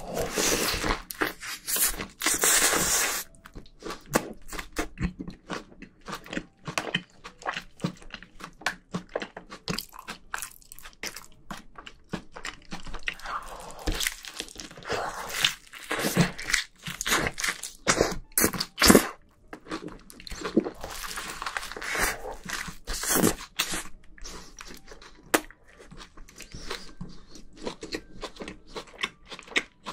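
Close-miked bites and chewing of a large handmade burger with lettuce, patty and fried egg: wet crunching and mouth clicks, loudest with a big bite in the first few seconds.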